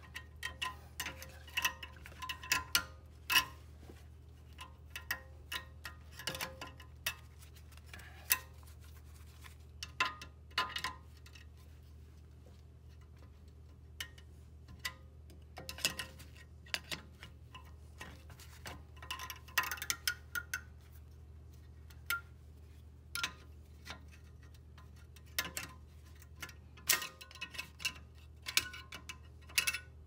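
Screwdriver tip clicking, scraping and clinking against the spring-loaded retaining clip of a Mercedes C300 W205 rear brake caliper as the clip is pried out: irregular metallic ticks, some ringing briefly, over a faint low steady hum.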